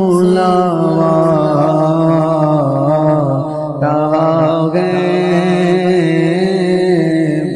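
Urdu naat sung by a man in a long, ornamented melody line, over a steady low humming drone held by backing voices.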